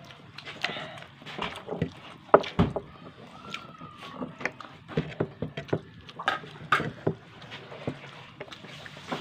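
Close-miked eating sounds: wet chewing, lip smacking and sucking as chicken feet adobo and rice are eaten by hand, in irregular clicks and smacks. A single loud knock about two and a half seconds in.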